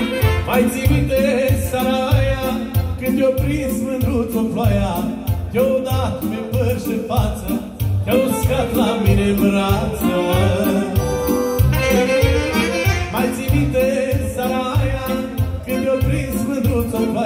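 Live band music amplified through PA speakers, with a steady beat under a melody line.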